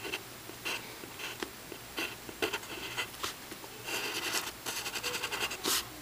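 Pencil scratching on paper in short, irregular strokes as lines are drawn, with a longer run of strokes about four seconds in.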